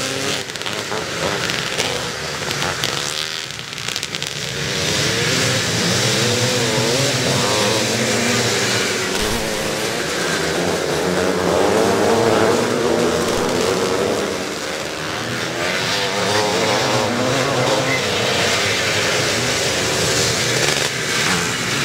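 Engines of a field of vintage twin-shock motocross bikes racing, many revving together, their pitch rising and falling. The sound dips a little about three to four seconds in, then closer bikes come by loud.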